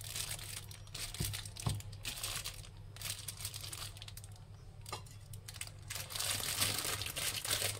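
Thin plastic sheet crinkling and rustling in bursts as hands press dough discs flat under a steel bowl and then handle the sheet, with a couple of soft knocks about a second in.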